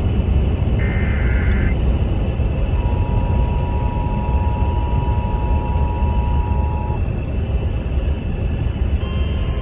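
Emergency Alert System broadcast: the last burst of the screechy SAME digital header ends about a second in, then the two-tone EAS attention signal sounds for about four seconds. A single steady alert tone starts near the end. Underneath runs a steady low rumble of background noise.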